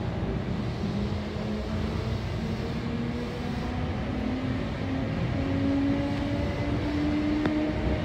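Sanyo Electric Railway electric train running along the line, heard from the cab: a steady rumble of wheels on rail under a faint motor whine that climbs slowly in pitch as the train gathers speed.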